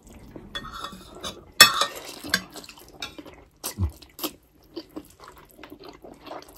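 A person slurping instant ramen noodles off a fork, loudest about one and a half seconds in, with short clinks of metal cutlery against a plate in between.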